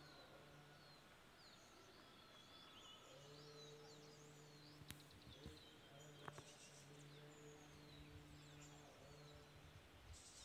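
Faint morning birdsong, many short chirps and whistled calls, over low Buddhist chanting. The chant is a voice held on one steady pitch in long phrases with short breaks.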